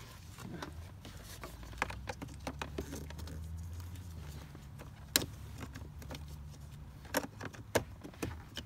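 Plastic scraping, rattling and clicking as a cabin air filter is slid into its plastic housing behind the glovebox, with one sharp click about five seconds in and a few more near the end. A low steady hum runs underneath.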